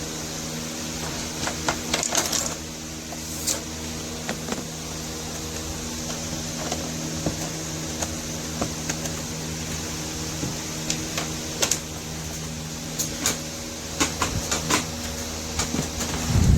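Small electric desk fan running with a steady motor hum, with scattered clicks and taps over it and a louder thump near the end.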